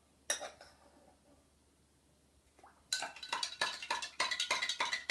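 A metal teaspoon clinking: one clink about a third of a second in, then from about three seconds in a rapid run of clinks, several a second, as salt is stirred into a glass of water to dissolve it.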